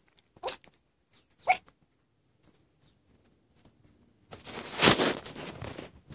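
Yorkshire terrier puppy giving two short yaps, about half a second and a second and a half in, followed near the end by a louder stretch of rustling noise.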